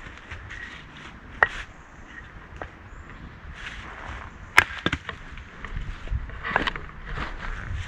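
Hatchet splitting kindling on a wooden chopping block. Two sharp chops come about a second and a half in and near the middle, with lighter knocks of wood between them and a cluster of softer knocks near the end.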